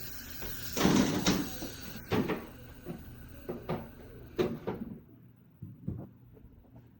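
A run of knocks and clicks from handling the butane torch over a steady hiss; the hiss cuts off about five seconds in, and one more knock follows.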